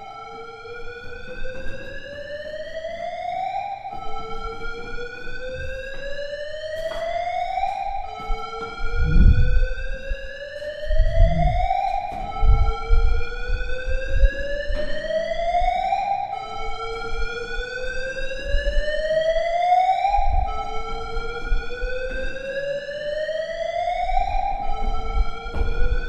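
Fire alarm sounding a slow rising sweep, each tone gliding up over about four seconds, then dropping back and starting again, echoing in a stairwell. Footsteps thud underneath, heaviest about nine and eleven seconds in.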